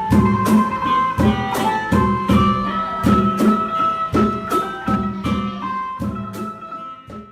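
Instrumental background music with a steady beat of about two strokes a second under a held melody, fading out near the end.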